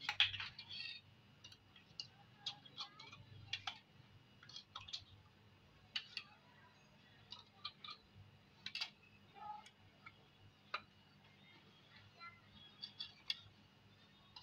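Light, irregular clicks and taps of a metal spoon against a steel bowl and thin plastic bottles as kulfi mixture is spooned into the bottles.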